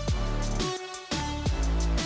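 Background music with a steady beat and a heavy bass note struck about every three quarters of a second.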